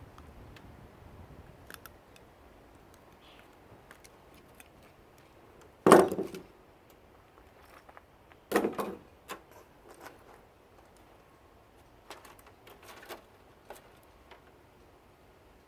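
Hand tools and loose metal parts clicking and knocking while a CRT monitor is taken apart: two louder knocks about six seconds in and two and a half seconds later, with scattered light clicks around them.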